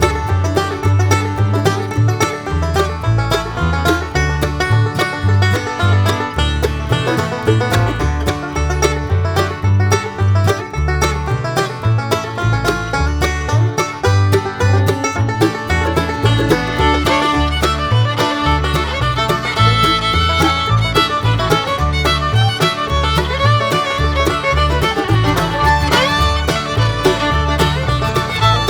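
Background music: upbeat bluegrass with banjo and fiddle over a steady bass beat.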